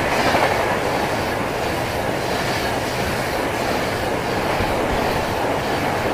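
Passenger express train running through the station, a steady noise of coaches and wheels with rapid clacking over the rail joints.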